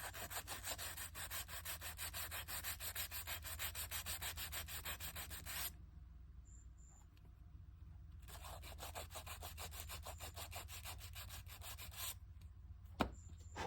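Hand sanding of a model boat's wooden planks: quick back-and-forth rubbing strokes, about five a second. The strokes stop for a couple of seconds midway, resume, then stop again before one sharp tap near the end.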